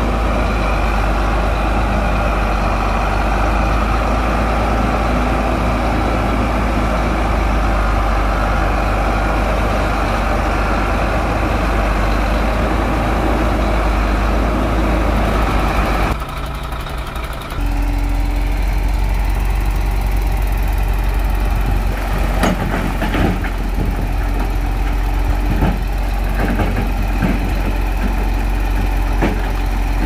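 Heavy earthmoving machine's diesel engine running steadily with a deep hum. About halfway it dips for a second or two, then runs on with scattered sharp clanks and knocks in the last third.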